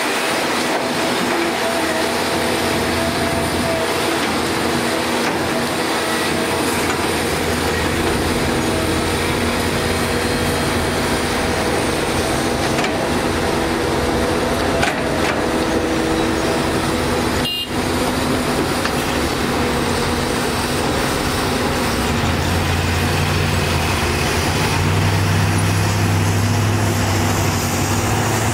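Diesel engines of a Kobelco hydraulic excavator and a dump truck running steadily with an even hum while the excavator loads dirt. About two-thirds through, the sound cuts to heavy dump trucks' diesel engines, with a deeper low drone building near the end.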